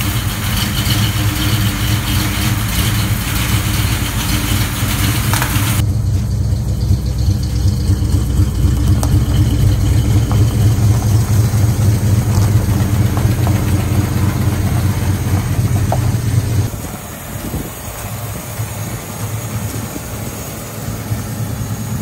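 Ford 302 V8 in a 1966 Mustang idling steadily. Its sound drops noticeably in level about three-quarters of the way through.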